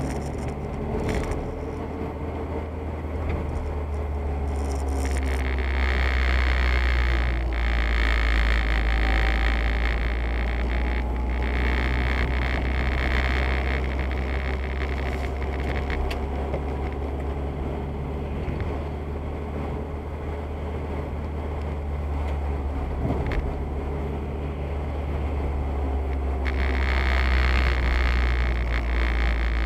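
A car driving on a wet road, heard inside its cabin: a steady low engine and road rumble, with the hiss of tyres on wet asphalt swelling twice.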